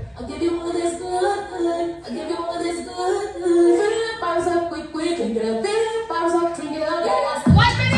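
Electronic dance song with a woman singing held notes over a breakdown with no drums or bass; the heavy beat and bass come back in near the end.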